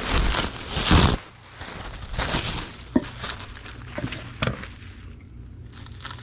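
Plastic bubble wrap rustling and crinkling as a sheet is pulled out and handled, loudest in the first second, with a sharp click about three seconds in and a few short rustles after.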